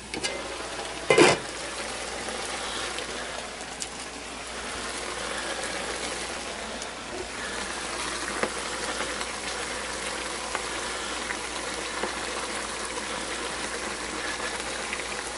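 Pork pieces and onion sizzling steadily in a hot skillet, with the spatula giving small scraping clicks as it stirs. A single sharp clank about a second in.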